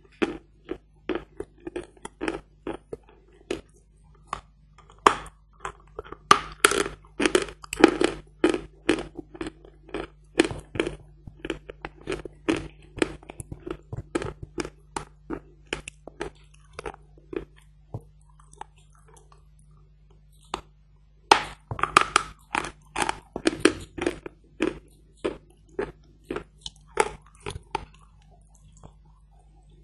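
Hard Badger chunk chalk being bitten and chewed close to the microphone: a run of sharp, dry crunches. The crunches come thick and fast from about five to thirteen seconds in and again from about twenty-one to twenty-five seconds, with sparser chewing in between.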